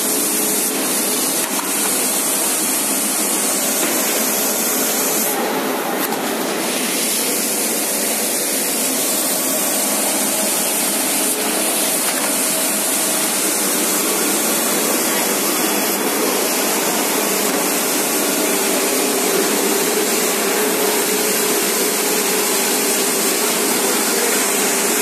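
Wide-belt plywood sanding machine running and sanding panels as they feed through, with its dust extraction: a loud, steady hiss over a steady hum.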